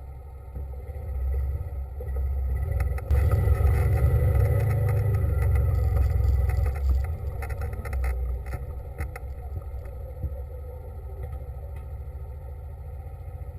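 A small engine running: it builds up over the first few seconds, is loudest in the middle with some rattling, then eases back to a steadier, lower level.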